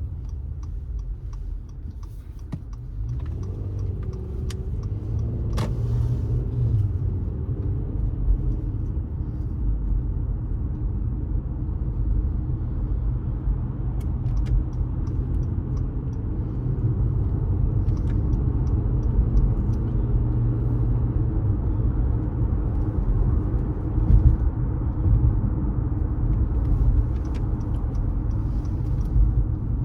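Car being driven on city streets: steady low road and engine rumble, with the engine note rising and changing a few seconds in.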